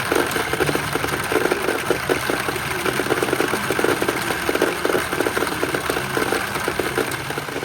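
Pachinko machine giving a dense, fast rattling clatter that runs on without a break.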